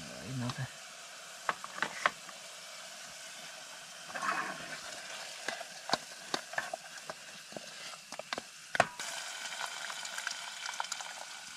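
Onion and spice masala sizzling and frying in a pan as it is stirred. The utensil scrapes and knocks sharply against the pan now and then. It is the stage where the spices are cooked into the browned onions.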